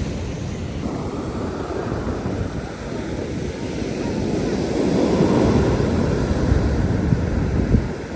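Ocean surf breaking and washing up the beach, a steady rushing that grows louder past the middle and falls off near the end, with wind buffeting the microphone.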